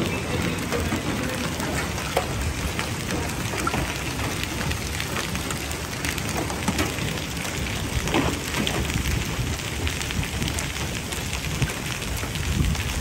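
Heavy rain and hail pelting the asphalt of a parking lot: a steady hiss of downpour dotted with sharp ticks of hailstones striking.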